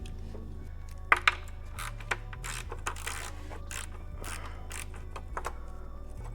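Background music with a low bass line, under scattered sharp metallic clinks and scrapes of hand tools working on exhaust bolts. The loudest clink comes about a second in.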